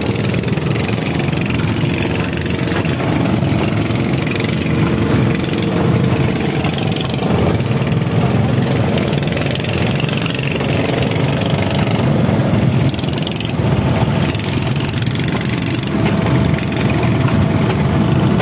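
Small outrigger boat engine running steadily at speed, over a hiss of wind and rushing water.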